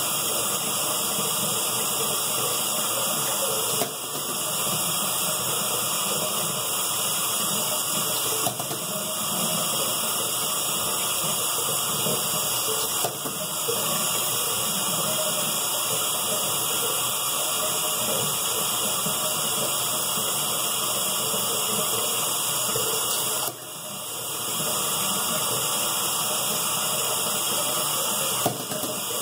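Water running steadily from a tap into a bathroom sink, a rushing hiss that dips briefly a few times.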